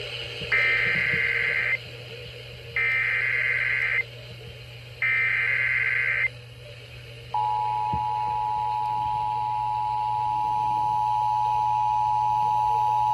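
Emergency Alert System header: three bursts of SAME digital data tones about a second each with short gaps, then about seven seconds in the steady two-tone EAS attention signal starts and holds, opening a severe thunderstorm warning.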